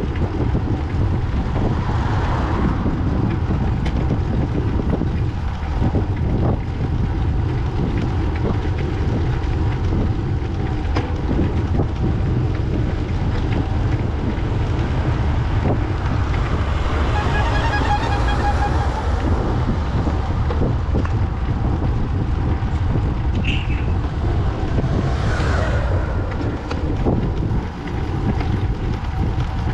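Steady wind buffeting the microphone, a loud low rumble throughout. Roughly two-thirds of the way through, a brief higher whirring sound swells and fades.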